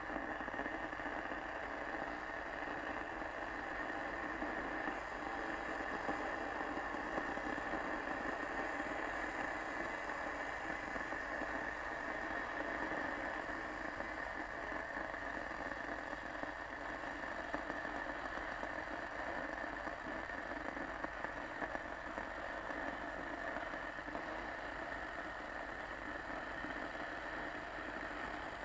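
Kettle heating water, giving a steady, even noise with no whistle.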